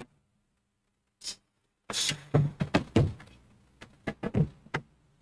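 Irregular knocks and thumps picked up by the pulpit microphone as the lectern and microphone are handled, starting about two seconds in after a near-silent pause.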